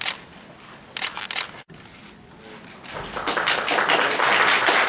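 Several camera shutters clicking in quick runs, then a room of people starts applauding about three seconds in and keeps going.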